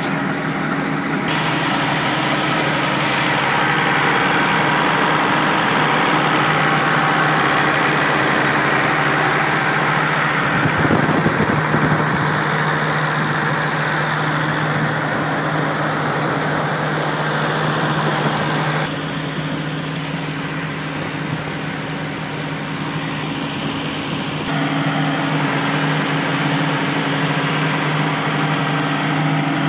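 John Deere 200LC excavator's diesel engine idling steadily, heard close up with the engine compartment open, as a steady low hum. It drops in level for a few seconds past the middle, then comes back up.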